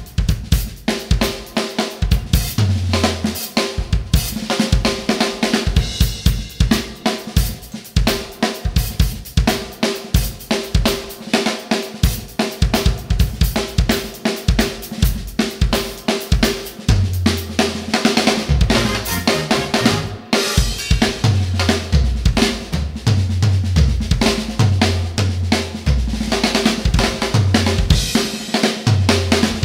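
DS Rebel Series drum kit with UFIP cymbals played live in a busy funk groove: snare, kick, hi-hat and cymbal hits in fast, dense strokes. Low notes that step in pitch, like a bass line, run underneath.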